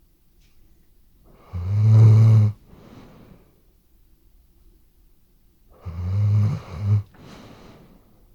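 Weimaraner snoring in its sleep: two loud, rattling snores on the in-breath about four seconds apart, each followed by a softer breath out.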